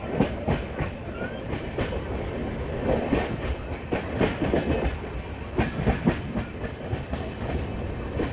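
Passenger train coaches running along the track, a steady rumble with frequent irregular clickety-clack of wheels striking rail joints, a few clacks a second.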